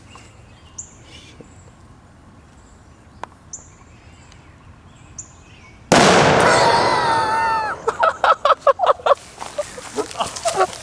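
A homemade works bomb (a sealed bottle of The Works toilet bowl cleaner) bursting with a single loud bang about six seconds in, its echo dying away over about two seconds. Before it, only faint bird chirps.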